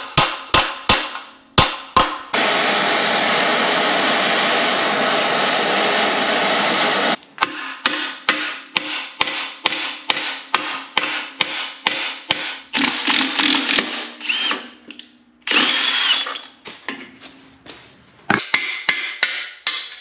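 Hammer blows on the steel lower control arm of a Corvair front suspension, knocking at a pivot shaft that is expected to be rusted solid. The strikes come about two to three a second, broken by a few seconds of a steady harsh power-tool noise and a shorter burst of it later.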